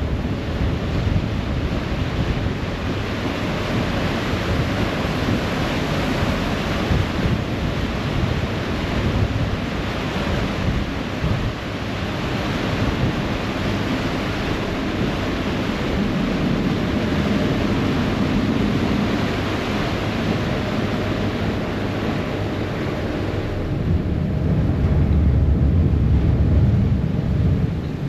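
Ferry wake rushing and churning behind the boat, with wind buffeting the microphone and a low engine rumble underneath. The low rumble grows louder about four seconds before the end.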